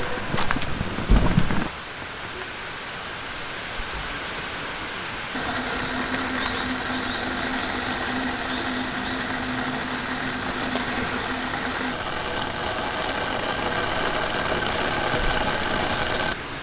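A steady low mechanical hum with a constant tone, over a background haze that shifts abruptly a few times.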